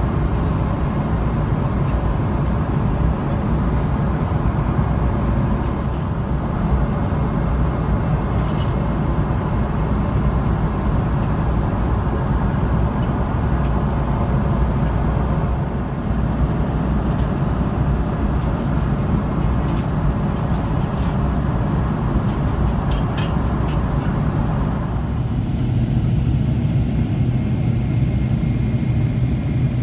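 Steady in-flight cabin noise of a Boeing 777-300ER: a continuous low drone of airflow and the GE90-115B engines, with a few faint clicks. About 25 seconds in the upper hiss thins out and the low hum stands out more.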